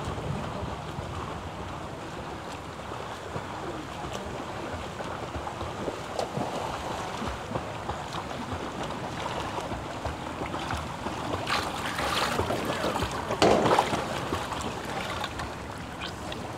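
Wind on the microphone over pool water, then splashing from a swimmer's strokes that grows louder as he nears. The splashing is loudest about three-quarters through.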